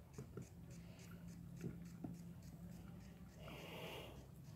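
Faint wet squishing and small clicks of fingers scraping inside a plucked rooster's body cavity to pull out the lungs, with a short rustle near the end, over a low steady hum.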